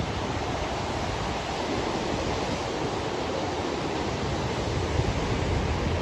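Ocean surf breaking and washing up a sandy beach: a steady, rushing wash.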